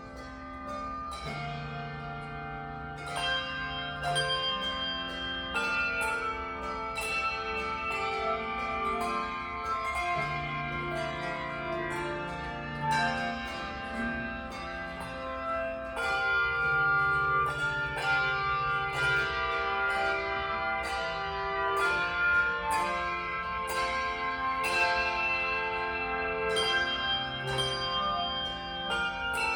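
Handbell choir playing a piece: many bells struck in chords and melody, each note ringing on after it is struck. Deep bass bells are held under them for a few seconds at a time.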